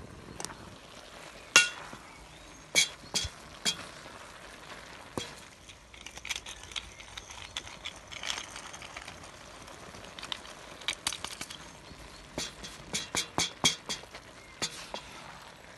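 Cooking in a cast-iron wok pot: a wooden stirring stick scrapes through cabbage and mince and knocks against the pot, giving sharp, ringing clinks. The clinks come singly in the first seconds and in quick clusters in the last few seconds, over a faint sizzle.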